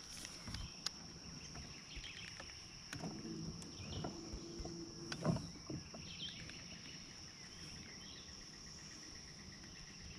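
Steady, high-pitched buzzing of insects in the swamp, with scattered light clicks and knocks from handling gear in a small boat; the loudest knock comes about five seconds in.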